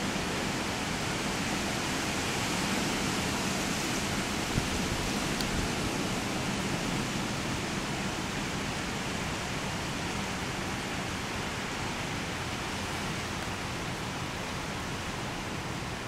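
Wind rushing through pine trees: a steady hiss that swells slightly a few seconds in, then eases.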